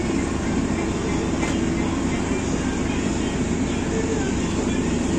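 Boat engine running steadily, a constant low mechanical drone with a faint rush of water.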